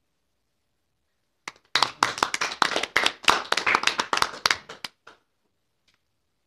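A small audience clapping: a run of distinct claps starts about one and a half seconds in and dies away about five seconds in.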